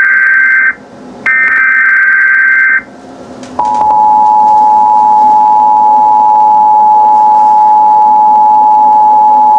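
Emergency Alert System tones for a tornado warning: buzzy two-pitch data bursts of the SAME header, then, about three and a half seconds in, the loud, steady two-tone attention signal.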